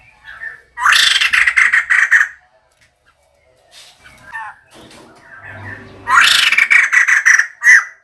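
Female white-crested laughingthrush calling: two loud bursts of rapid, harsh chattering notes, each about a second and a half long, with a few shorter, quieter calls between them and one more short note just before the end.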